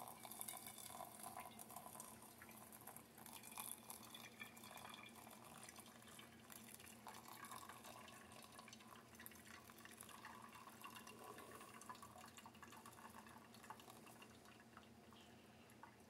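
Faint trickle of hot water poured in a thin stream from a pot onto coffee grounds in a stainless steel pour-over filter.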